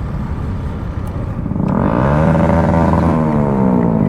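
Motorcycle riding on the road, a steady low rumble with wind noise. About one and a half seconds in, a louder engine note comes in, rising and then falling in pitch, and fades near the end.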